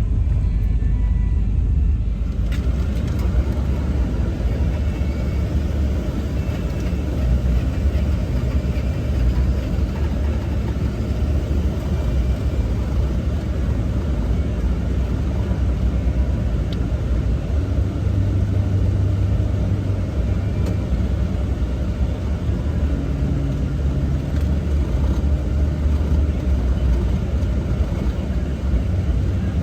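A vehicle running and driving: a steady low engine and road rumble with no breaks.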